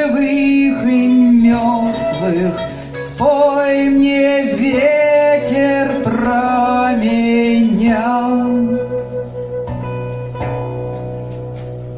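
Closing bars of an acoustic folk song played live on guitars with flute and percussion: a melody line runs over the strummed guitars until about eight seconds in, then the final chords ring on and fade out.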